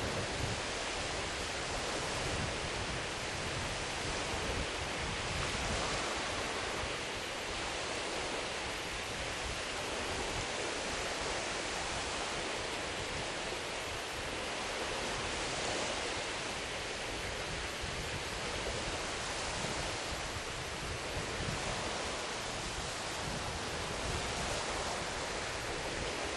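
Steady seaside ambience: wind and the wash of the sea, with gusts rumbling on the microphone.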